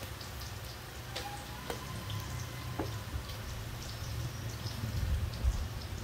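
Faint scattered ticks and rustles from a blood pressure cuff and its electronic monitor being handled, over a steady low hum.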